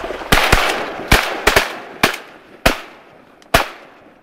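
A volley of shotgun shots from several hunters firing at passing teal: about eight blasts in under four seconds, unevenly spaced, some in quick pairs.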